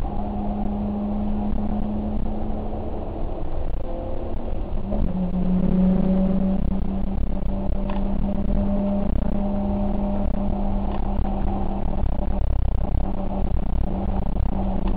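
Vehicle engine running at a steady drone, its pitch dropping slightly and its level rising about five seconds in.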